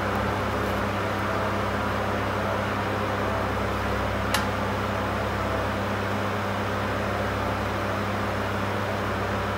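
Steady machine hum over an even hiss, with one short click about four seconds in.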